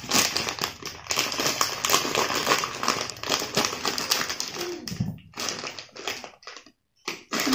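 Clear plastic bag of dry cat-food kibble crinkling and rustling with many small clicks as it is handled, snipped open with scissors and pulled apart. The sound breaks off briefly near the end.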